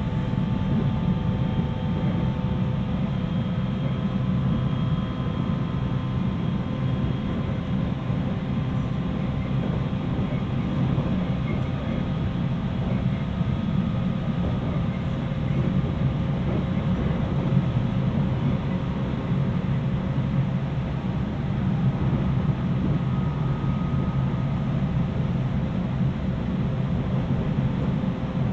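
Interior running noise of a JR East 719 series AC electric multiple unit at steady speed: a dense, steady rumble with faint steady whining tones above it. This car has a jet-like whine that marks it as an unusual-sounding car.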